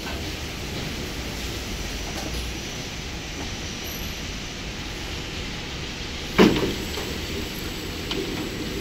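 Steady running noise of an automatic ceiling-board packaging line's conveyors and machinery, with one sharp, loud clunk about six seconds in that rings briefly, and a few lighter clicks near the end.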